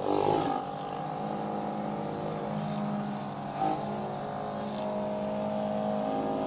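Pressure washer running steadily, spraying through a rotary surface-cleaner attachment onto wooden deck boards. A brief louder rush of spray comes right at the start.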